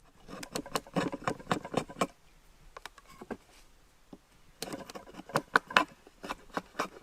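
Quick series of light wooden clicks and knocks in two bursts, the first about a second long and the second near the end, as pieces of wood are handled and tapped together.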